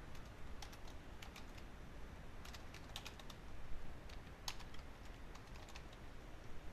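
Typing on a computer keyboard: faint, irregular keystrokes in small clusters, over a low steady hiss.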